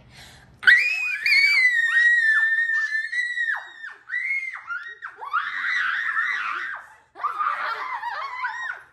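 Children shrieking and squealing with excitement: a long high-pitched scream starting just under a second in, then a string of shorter squeals mixed with laughter.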